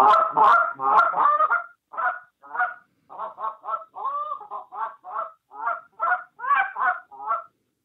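Goose call blown by hand in a hunter's field style, meant to draw geese in close to shoot: a quick flurry of honks and clucks over the first second and a half, then a steady run of short single notes at about three a second.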